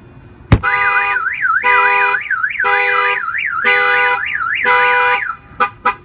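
A bang on the pickup's window glass sets off the Excalibur 1670 car alarm through its shock sensor. About half a second in, a single knock is followed by the alarm siren: a fast up-and-down warble with steady tones switching on and off about once a second, which stops shortly before the end, followed by a couple of short clicks.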